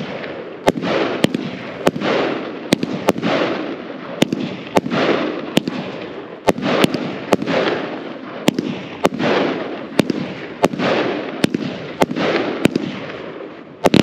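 Jekyll and Hyde 320-shot compound firework cake firing a steady string of shots, roughly one to two a second, each launch followed by its burst overhead.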